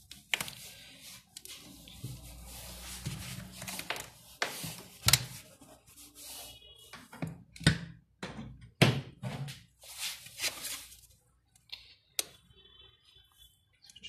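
Handling noises from a hair dryer and its power cord: rustling and a series of irregular clicks and knocks, the loudest about five, eight and nine seconds in.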